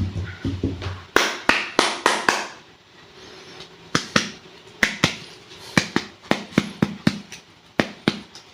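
Sharp crackles and snaps of clay packs being opened and handled: a quick cluster of crackles, then single crisp snaps about every half second.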